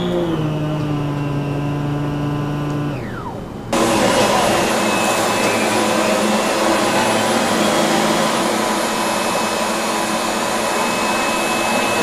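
A vacuum cleaner motor running with a steady hum, then winding down about three seconds in. After a brief lull, an upright vacuum runs steadily with a rushing sound and a thin high whine.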